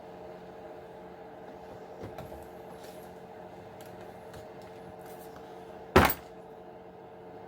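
Faint clicks of small plastic RC-truck parts being handled, with one sharp knock about six seconds in, over a steady electrical hum.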